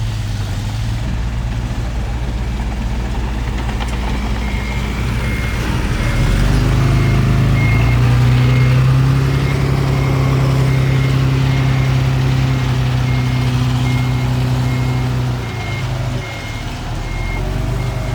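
Heavy diesel engine of earthmoving machinery running. It revs up about six seconds in, holds for some nine seconds and drops back. From about four seconds in, a reversing alarm beeps steadily, about one and a half beeps a second.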